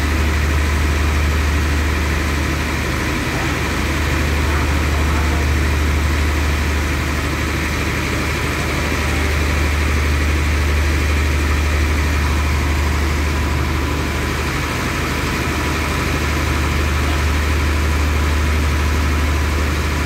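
Diesel engine of a passenger train standing at the platform, idling with a steady deep hum.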